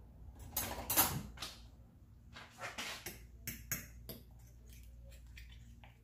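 Kitchen clatter: a few louder knocks and scrapes in the first half, then a fork clinking against a ceramic bowl a few times as raw eggs, diced tomato and chopped green onion are stirred together.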